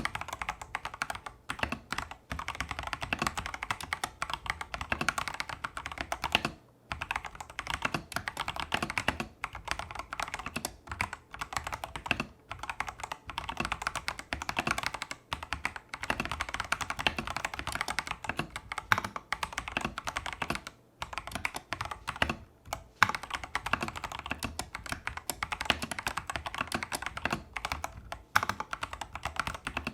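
Continuous fast typing on a Tester68 mechanical keyboard with stock, factory-lubed Holy Panda clone switches and XDA-profile keycaps: a rapid stream of keystroke clacks broken by a few brief pauses.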